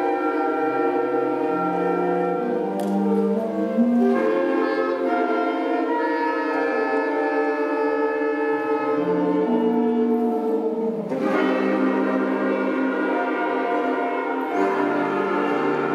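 Seventh-grade concert band playing a piece: brass and woodwinds hold sustained chords that change every second or so, with a few sharp hits about three and four seconds in and again near eleven and fourteen seconds.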